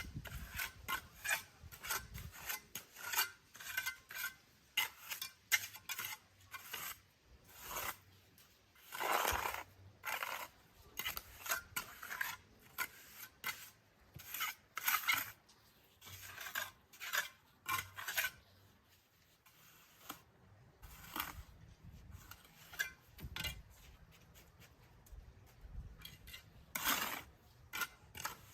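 Repeated short scraping strokes of a hand tool on a rough surface, about one or two a second, with a few longer drawn-out scrapes.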